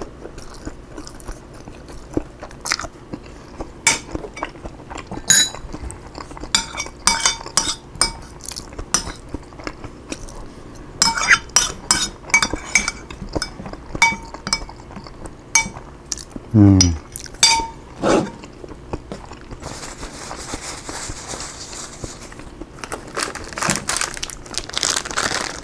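Close-miked eating: crunchy bites and chewing of seaweed-wrapped broccoli rice with cheese, among small clicks and clinks of a utensil against a dish. About two-thirds through comes a short low falling vocal sound, and near the end a brief hiss.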